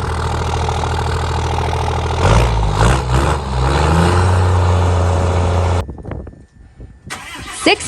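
5.9 Cummins inline-six turbodiesel with a 5-inch exhaust idling, then revved up about two seconds in and held at higher revs. The sound cuts off sharply near six seconds.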